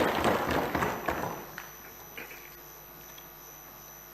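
Applause in the hall fading out about a second and a half in, leaving a quiet room hum with a few faint clicks.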